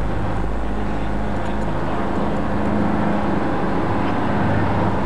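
A fishing boat's engine droning steadily, heard inside the passenger cabin as a low, even hum.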